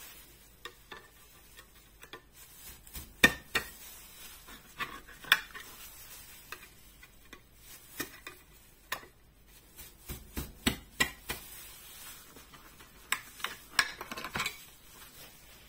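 Tin can of corn being cut open with a hand-held lever can opener: irregular sharp metallic clicks and crunches as the blade is worked around the lid, the loudest about three seconds in.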